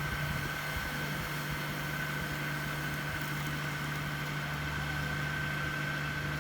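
A machine engine running steadily at idle, a constant hum with a thin steady whine above it.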